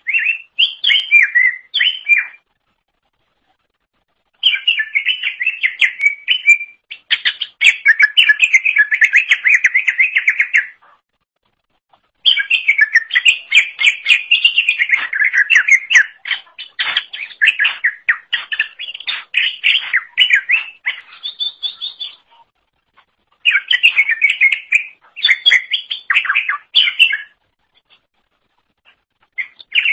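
Green leafbird (cucak ijo) singing loudly in long bouts of rapid, varied chirping phrases, with pauses of a second or two between bouts.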